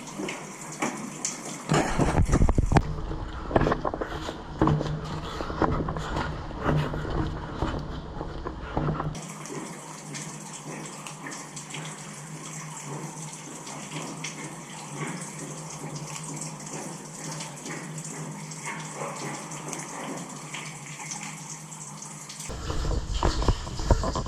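Water running and splashing in a concrete stormwater drain tunnel, echoing. Irregular knocks and splashes for several seconds from about two seconds in, then steadier running water, with knocks again near the end.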